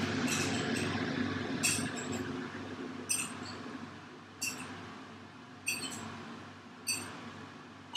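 Small plastic spoon squeaking and clicking against a glass spice jar and dish while black pepper is scooped and sprinkled, in short sharp bursts about every second and a half, over a faint steady hum.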